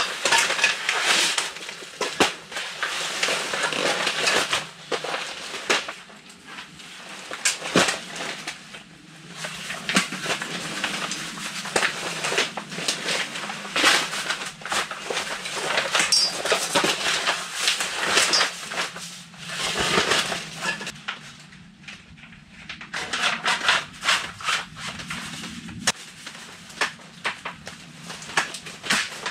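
A folding camp cot being handled and set up: bursts of fabric rustling with scattered clicks and knocks from the frame.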